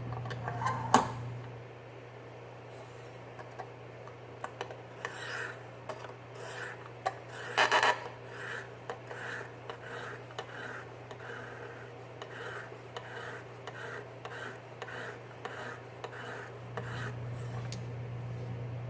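A 300-grit diamond hone on a KME guided sharpener scraping along an AUS-8 steel knife edge in even back-and-forth strokes, about one and a half a second, in the coarse first stage of sharpening. There is a sharp click about a second in, and a louder scrape shortly before the strokes settle into their rhythm.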